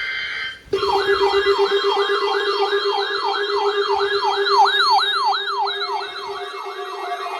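Weather-alert receiver alarm set off by a NOAA Weather Radio test signal: a short burst of steady warbling data tones, then a rapid siren-like wail, about three rising-and-falling sweeps a second, over a steady low tone.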